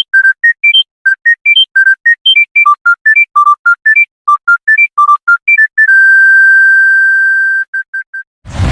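Electronic phone ringtone: a fast melody of short, bright beeps at changing pitches, about five a second, then one long held note about six seconds in and three quick beeps. A loud boom starts right at the end.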